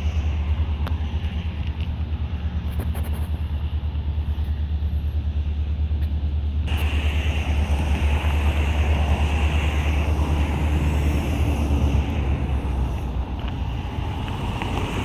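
Double-stack container freight train rolling past, a steady low rumble of wheels on rail. The sound changes abruptly about seven seconds in, becoming hissier.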